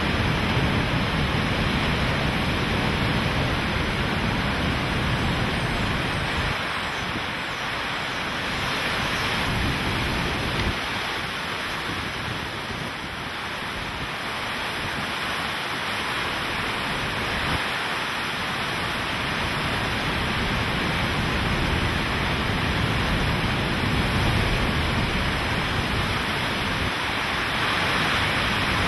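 Hurricane-force wind and driving rain: a loud, steady rush. Gusts buffet the microphone in a low rumble that swells and drops every few seconds.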